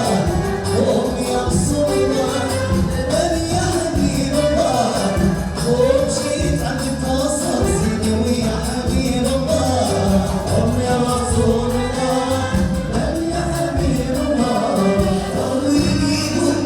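Live Moroccan wedding music: voices singing together over a steady beat of hand drums and tambourines.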